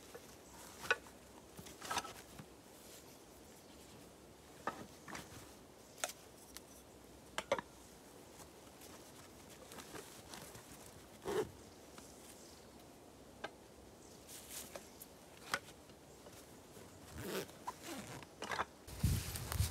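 A backpack being packed and closed by hand: a string of short clicks, rustles and a zip, with a louder, deeper rustle near the end.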